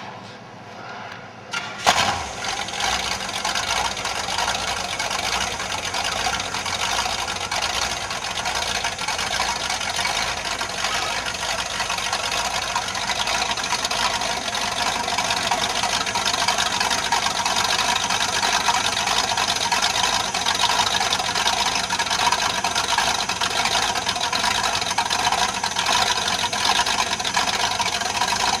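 Jet boat engine starting with a sudden catch about two seconds in, then running steadily and loudly.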